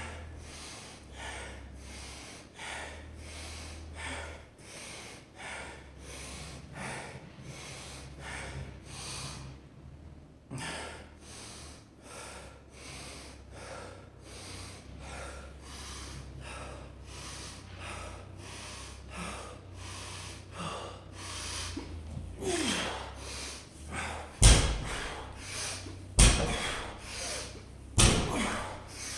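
Heavy, rhythmic breathing through the nose, about two breaths a second, from someone working through a set of deadlifts. Near the end a 225 lb loaded barbell thuds on the floor three times, a little under two seconds apart, as deadlift reps touch down.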